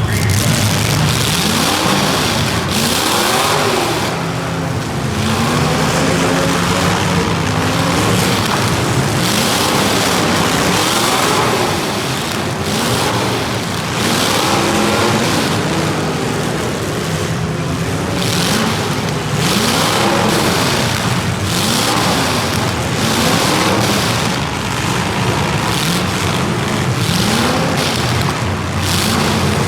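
Racing engines revving up and falling back again and again, each rise and fall lasting a couple of seconds, like vehicles lapping a track.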